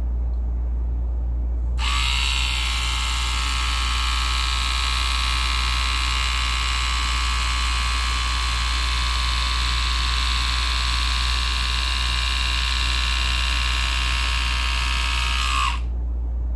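Split-Ender Pro 2 split-end trimmer's motor running with a steady high whine as it is drawn along a section of hair. It switches on about two seconds in and shuts off about a second before the end, over a steady low hum.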